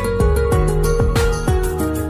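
Background music: a soft instrumental track with sustained notes and a steady beat.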